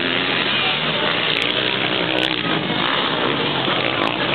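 Several motocross bikes' engines revving and changing pitch as a pack races round the dirt track, a steady, loud din.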